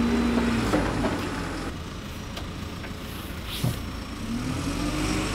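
An engine running, easing off in the middle and revving up again near the end. A single light knock comes partway through.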